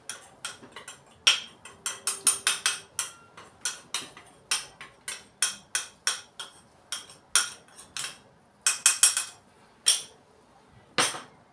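A metal spoon clinking sharply against a small ceramic bowl, about two or three irregular taps a second, as cocoa powder is knocked and scraped out of the bowl into a pan. The taps stop near the end.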